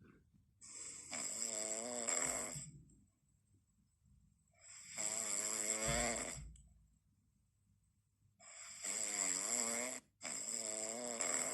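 Snoring in sleep: three long snores about four seconds apart, each with a wavering, fluttering pitch; the third is broken by a short gap.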